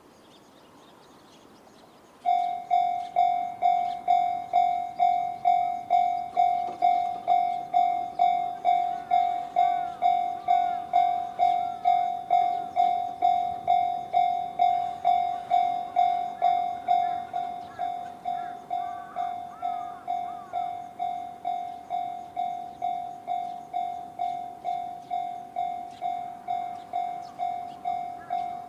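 Japanese level-crossing alarm with the JR standard electronic bell sound starts ringing about two seconds in, a steady rapid clanging of about two strikes a second, warning that a train is approaching. It becomes quieter about 17 seconds in.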